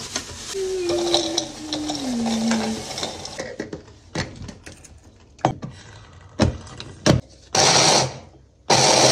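Walnuts poured from a plastic bag into a hand blender's chopper bowl, with crinkly bag rustling, then a few clicks as the motor head is fitted. Near the end the chopper runs in two short pulses, about a second apart, grinding the walnuts.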